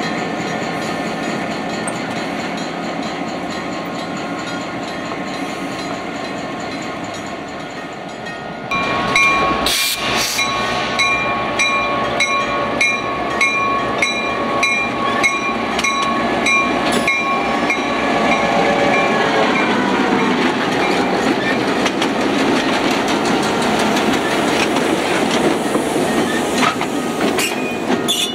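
Diesel switching locomotives, an EMD GP9 among them, rolling slowly past with their engines running and wheels clicking on the rails. About a third of the way in a locomotive bell starts ringing in regular strokes, about two a second, and carries on for roughly ten seconds.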